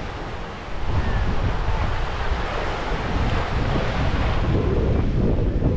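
Wind buffeting the microphone over ocean surf, a rough, steady rush heavy in the lows, growing louder just under a second in.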